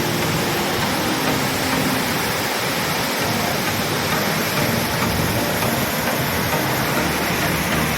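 Waterfall close by: a steady, unbroken rush of heavily falling water.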